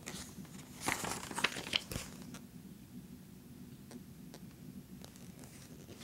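Pages of a glossy magazine being turned by hand: a papery rustle with a few sharp crinkles about a second in, lasting about a second, then only faint light taps of paper.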